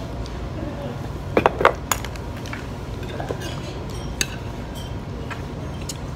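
A metal serving spoon and chopsticks clinking against a plate as food is scooped up. There is a quick cluster of sharp clinks about a second and a half in and a few lighter ones later, over a steady low background hum.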